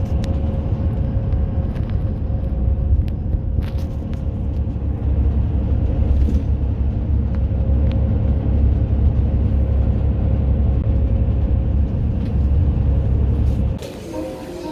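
Steady low rumble of a moving road vehicle, with a faint steady hum above it; it cuts off near the end.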